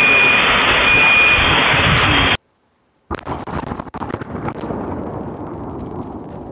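Loud steady hiss with short, repeated beeps that cuts off suddenly about two seconds in. After a moment of silence the RV bomb's blast comes in as a crackling rumble that slowly fades, picked up by a security camera's microphone.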